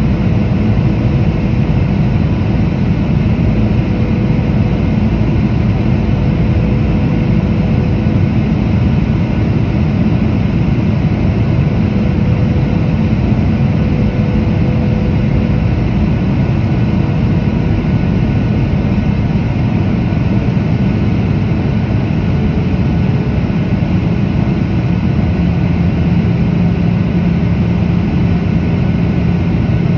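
Cabin noise inside a Boeing 737-800 beside the wing: the steady drone of its CFM56-7B turbofan engine and rushing airflow, heaviest in the low end. A faint whine within the drone shifts slightly lower in the last third.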